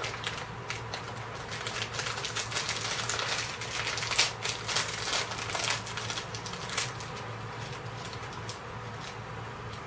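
Plastic snack packaging crinkling and crackling as it is handled and opened: a dense run of small irregular crackles, busiest in the middle.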